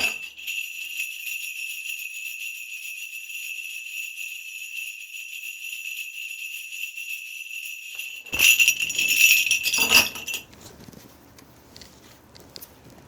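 Shaman's ritual bell cluster shaken continuously in a steady jingle, marking the start of a spirit reading. It grows louder about eight seconds in and stops about ten and a half seconds in.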